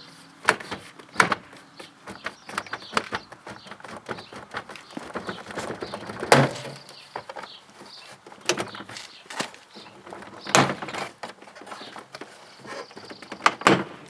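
Plastic door-panel retaining clips snapping loose as a truck's inside door panel is pulled away from the door, with knocks and rattles of the panel being handled. Sharp separate snaps come at irregular intervals, the loudest about six seconds in.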